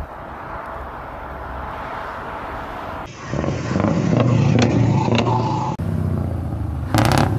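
Distant dual-carriageway traffic with trucks passing, then a truck's diesel engine running loud and deep close by. About seven seconds in, a short sharp burst of hiss.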